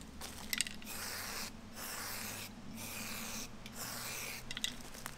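Aerosol can of marking paint spraying onto a tree trunk in about four short hisses, each under a second, with brief pauses between them.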